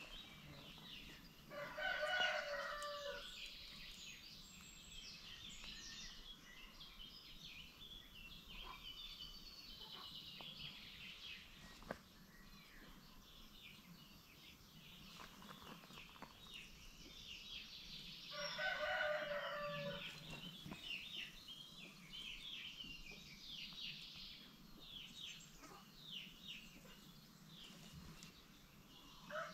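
A rooster crowing twice, once about two seconds in and again near twenty seconds in, each crow lasting about a second and a half. Between the crows, chickens cluck, with many short high chirps.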